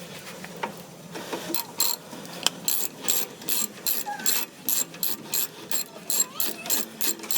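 Hand ratchet wrench clicking in quick repeated strokes, about three clicks a second, settling into a steady rhythm about a second and a half in.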